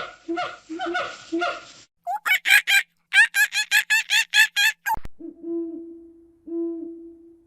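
Three different animal calls in quick succession: a run of short repeated calls, then a fast series of about a dozen high, rising calls, then two long, steady hoots.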